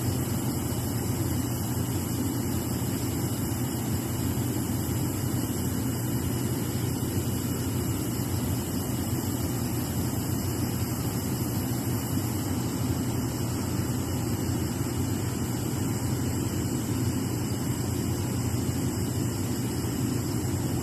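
Improvised biogas flare burning at the open end of a pipe: a steady, deep rushing noise that does not change.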